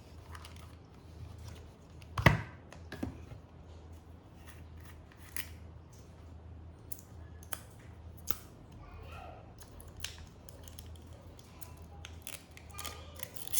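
A toy bubble gun and its plastic packaging being handled during unboxing: scattered sharp clicks and snips, the loudest about two seconds in.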